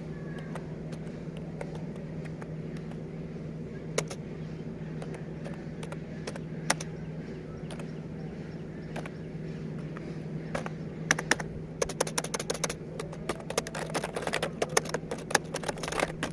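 Keys being typed on a computer keyboard: a few scattered clicks at first, then rapid, dense typing from about ten seconds in. A steady low hum runs underneath.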